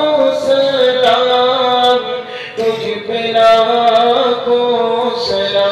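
A man's voice chanting a naat, an Urdu devotional poem in praise of the Prophet, in a slow melody that holds long notes with gentle bends and breaks briefly about halfway.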